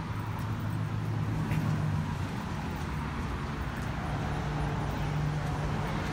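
Steady low rumble of motor traffic, an even engine hum over road noise.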